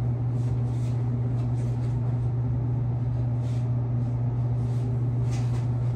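Steady low mechanical hum of a ventilation fan, unchanging, with a few faint rustles now and then.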